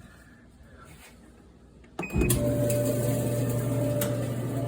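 Haier RDE350AW electric dryer starting up about two seconds in: a click and a short beep, then the motor and drum running with a steady hum and a steady whine. It runs smoothly, without the earlier racket, now that the torn drive belt has been replaced.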